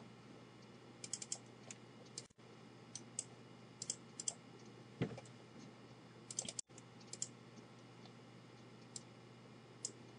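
Computer mouse clicking at irregular intervals, often in quick double or triple clicks, over a faint steady low hum.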